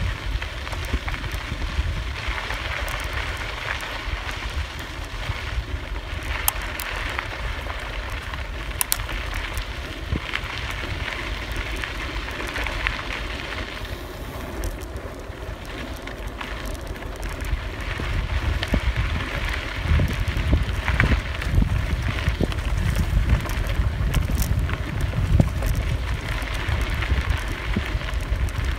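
Wind buffeting the microphone while riding a bicycle along a dirt trail, with the tyres crunching over the ground and small rattles and clicks from the bike. It grows louder about two-thirds of the way through.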